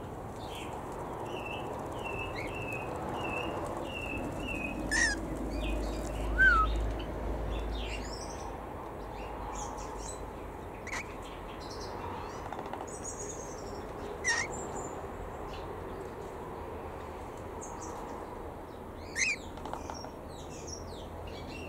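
Mixed aviary birds calling: a quick run of short chirps in the first few seconds, then single sharp calls every few seconds over a steady background hiss.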